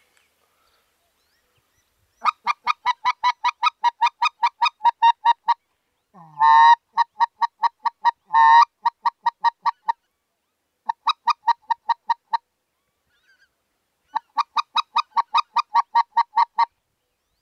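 Mouth-blown goose call giving goose honks: four quick runs of short, even clucks, about four or five a second, with two longer drawn-out honks in the second run. It is a calling sequence used to bring geese back in after shooting.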